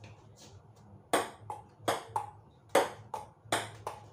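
Table tennis rally: a celluloid ping-pong ball clicking sharply off the paddles and the table top, about eight clicks starting a second in.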